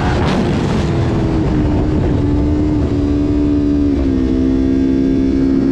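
Kawasaki Ninja 400's parallel-twin engine, with an Akrapovic slip-on exhaust, held at high revs in sixth gear near its top speed of about 190 km/h, with wind rushing over the microphone. The engine note is steady and eases down a little about four seconds in.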